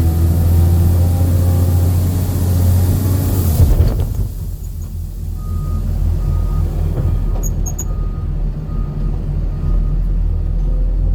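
A motor vehicle's engine running with a heavy low rumble. About four seconds in the sound changes, and a steady series of short, evenly spaced electronic beeps begins, a little under two a second.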